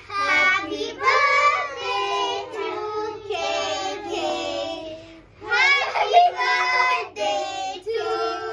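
A group of children singing a song together, in sung phrases with a short break about five seconds in.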